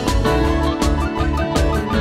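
Background music with a steady beat and plucked-string melody.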